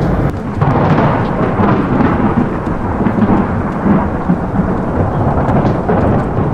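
Loud thunder rumbling continuously, breaking in suddenly right at the start.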